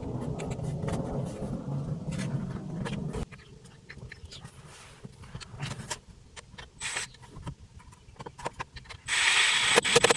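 Small clicks and knocks of plastic dash parts, brackets and screws being handled and fitted. A steady low hum runs under the first three seconds and stops suddenly, and a burst of loud hiss comes near the end.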